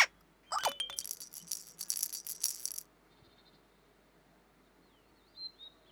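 A shaker-like rattling sound effect for about two seconds, then quiet with a few faint high bird chirps near the end.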